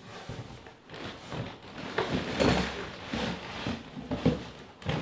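Rummaging inside a large cardboard shipping box: plastic and metal spreader parts scraping and knocking against the cardboard in irregular bursts, busier from about two seconds in.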